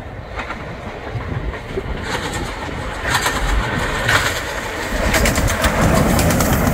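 LMS Black Five steam locomotive 45407 working past with its train: rapid exhaust chuffs over the clatter and rumble of wheels on rail, growing louder as it draws near and passes close by.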